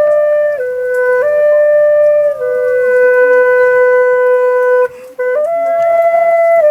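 Background music: a slow single-line melody of long held notes, with a short break about five seconds in.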